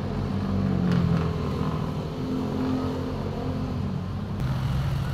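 A motor running with a low hum whose pitch slowly wavers up and down, with a faint click about a second in.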